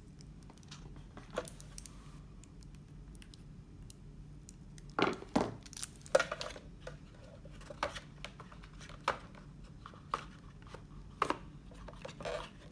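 Hands handling a cardboard phone-box insert tray and small accessories: scattered knocks, clicks and rustles, the loudest knocks about five and six seconds in.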